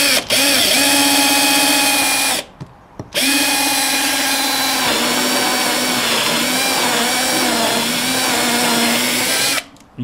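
Guild 18V cordless drill driving a hole saw through a treated timber board to cut a bird-box entrance hole. It runs as a steady motor whine for about two seconds, stops briefly, then runs again for about six more seconds, with the pitch sagging a little under load, and stops as the saw breaks through.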